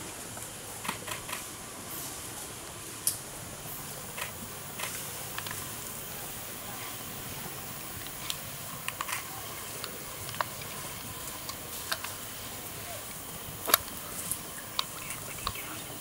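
Steady outdoor hiss with short, sharp clicks and snaps scattered irregularly through it, a few of them louder, about three-quarters of the way in.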